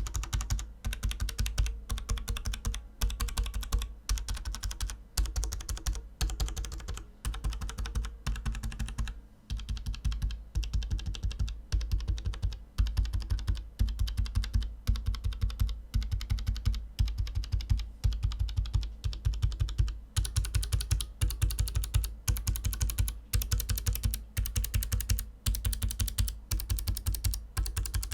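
Mechanical keyboard switches being typed on in quick, continuous bursts of keystrokes, as in a switch sound test. About two-thirds of the way through the clicks turn crisper and brighter.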